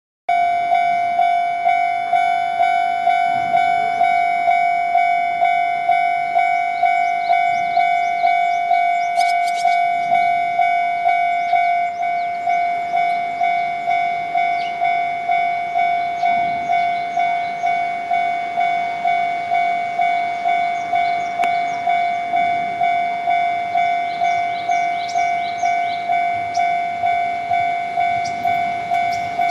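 Japanese railway level-crossing alarm ringing its electronic bell, an even 'kan-kan' of about two to three strikes a second, warning that a train is coming. About twelve seconds in the tone changes slightly and drops a little in level.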